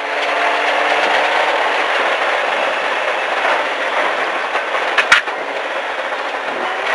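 Inside the cabin of a Subaru STi rally car at speed on a dirt stage: a steady rush of tyre and gravel noise over the engine, easing off a little as the car brakes from about 75 to 50 mph with the throttle lifted. A single sharp crack sounds about five seconds in.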